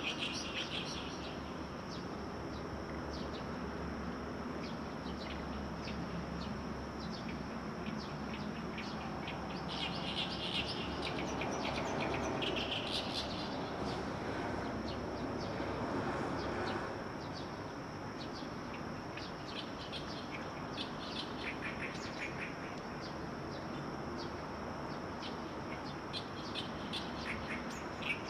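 Small songbirds chirping and twittering in quick runs of short high notes, with denser bursts of song now and then, over a steady hiss of background noise.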